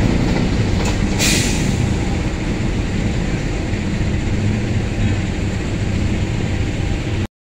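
Passenger train's coaches rolling away along the track: a steady rumble of wheels on rail, slowly fading, with a short hiss about a second in. The sound cuts off suddenly shortly before the end.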